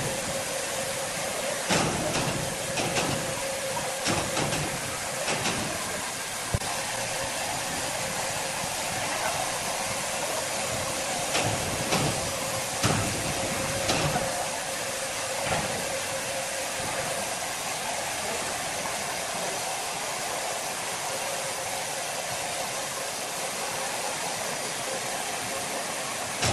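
Sawmill machinery running steadily, a hissing noise with a steady hum through it. Scattered knocks and clatter of timber being handled come now and then in the first half.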